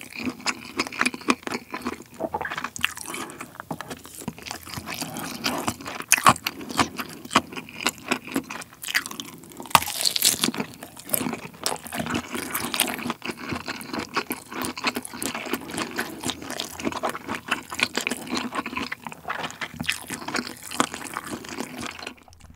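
Close-miked chewing of a mouthful of kielbasa sausage: a steady run of many small smacks and clicks from the mouth, stopping just before the end.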